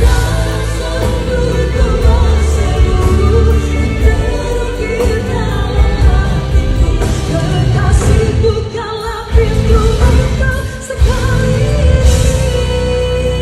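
A woman singing a Malay pop song live into a microphone, backed by a full band with strong bass.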